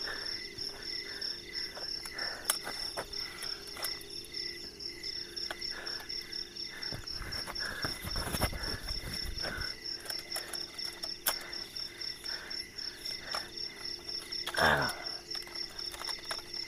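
Crickets chirping in a fast, even pulse, with other night insects calling steadily. A low rumble comes through the middle, and near the end a brief sound slides sharply downward in pitch, the loudest moment.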